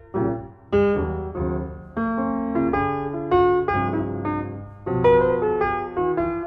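Piano music: a slow melody over chords, notes struck about once or twice a second and left to ring and die away.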